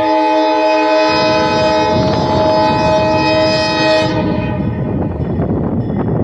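Diesel locomotive air horn sounding a long chord of several notes, cutting off about four seconds in, with the rumble and clatter of the train running underneath.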